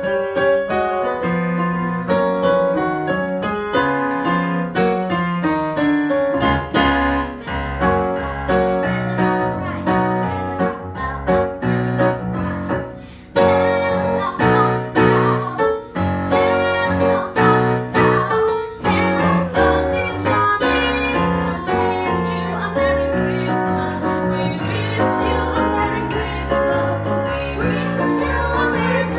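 Roland digital piano playing an accompaniment in a Christmas-song medley, with a woman singing over it.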